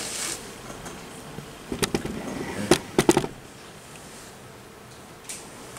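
A handful of sharp clicks and knocks, the loudest a little under three seconds in, over quiet room tone.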